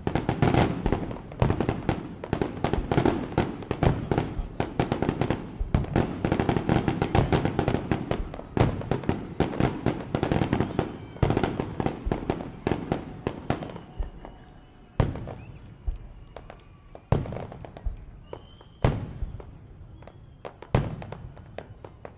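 Fireworks display: a dense, rapid barrage of bangs and crackles, thinning about halfway through to single booms a second or two apart.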